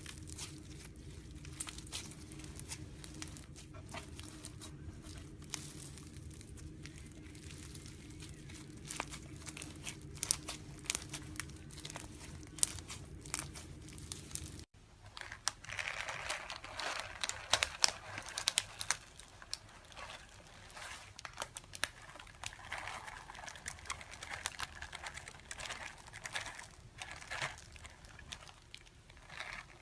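Slime being squeezed, pressed and stretched by hand, giving dense irregular crackles and small pops. In the first half a steady low hum runs underneath. It stops at an abrupt cut about halfway, after which the crackling is louder.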